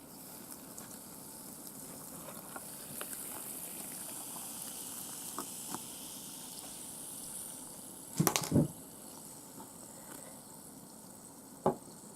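Carbonated orange soda fizzing in a glass, a fine hiss that fades away after about seven seconds. A short clatter of hard knocks about eight seconds in, and a single knock near the end.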